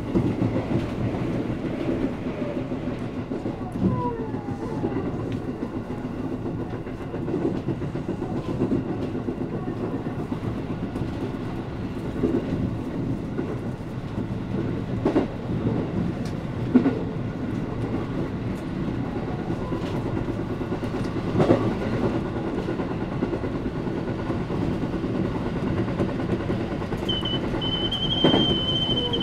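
Electric commuter train running along the track, heard from inside the carriage: a steady low rumble with scattered clacks of the wheels over rail joints. About two seconds before the end, a high steady whine sets in.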